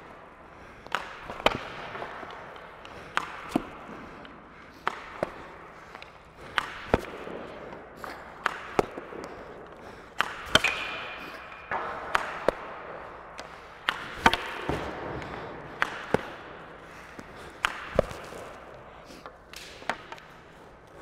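Ice hockey shooting practice: a stick cracks against a puck, and the puck smacks into the goalie or the boards a fraction of a second later. This happens about a dozen times, one shot every second and a half to two. Skate blades scrape the ice between some of the shots.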